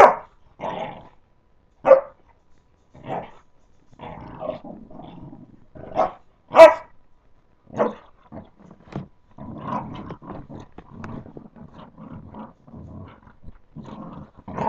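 Boxer pups play-fighting: low, rough growling runs through, broken by a few short sharp barks. The loudest bark comes about halfway through.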